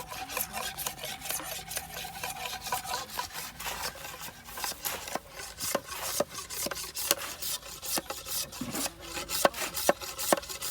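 Bamboo being worked with a blade: quick, irregular scraping and chopping strokes on wood, several a second.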